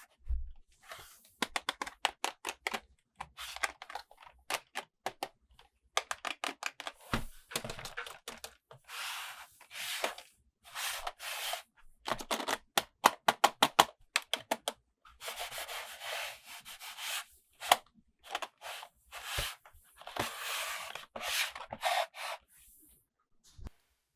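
Toy packaging being opened and handled by hand: short bursts of rubbing and scraping, broken by runs of rapid sharp clicks.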